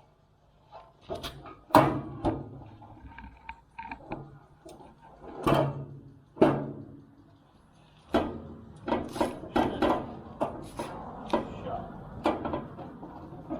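Grill parts being handled and fitted during assembly: a few separate knocks and clanks, then a dense run of clicks and rattles in the last few seconds.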